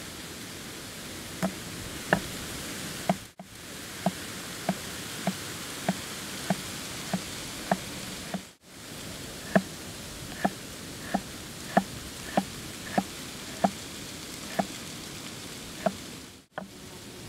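Repeated knocks at an even pace, about one and a half a second, each with a short ringing tone, like something being struck again and again during camp work, over a steady rushing background. The knocking breaks off for a moment at two cuts and picks up again.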